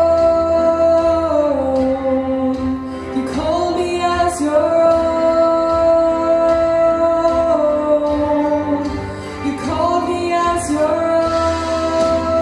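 Slow song: a female voice holding long notes that slide to a new pitch every few seconds, over a steady low bass.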